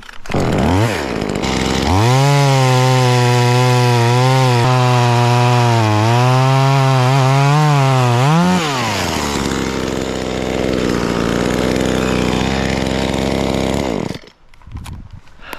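Small two-stroke chainsaw, a cheap knockoff Chinese model with a tiny motor, blipped once and then held at full throttle for about seven seconds while cutting a face cut in the tree. Its pitch wavers under load. It then drops to idle for about five seconds and stops near the end.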